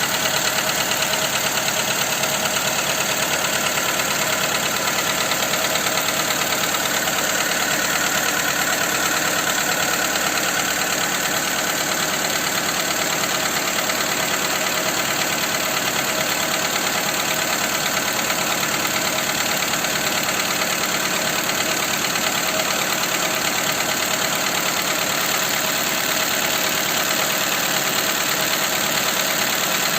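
Skoda Fabia II 1.4 engine running steadily with a fast, even knock. The knock is still there after the cylinder-head cover with its camshafts was replaced.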